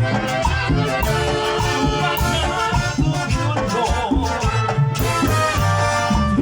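Live Latin dance band playing tropical music with horns and shaken maracas over a steady bass beat.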